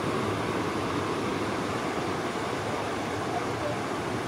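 Steady rush of ocean surf breaking and washing up the beach.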